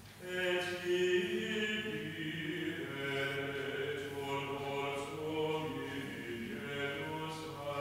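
Unaccompanied voices singing slow chant, with long-held notes overlapping; a new phrase comes in about half a second in.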